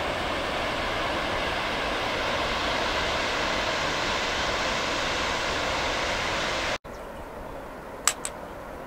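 Steady roar of a waterfall, an even rushing noise that cuts off abruptly near the end. A quieter hiss follows, with two sharp clicks.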